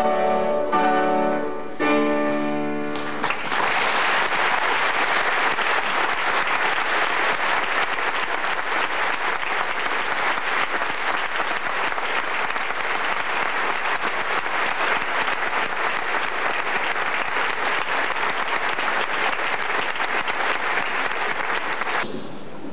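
Orchestral music ending on two final chords in the first three seconds, followed by a theatre audience applauding steadily until the clapping stops suddenly near the end.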